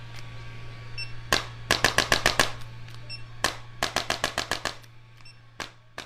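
Bursts of rapid sharp clicks, about ten a second, each burst led by a single louder strike and recurring roughly every two seconds, over a steady low hum.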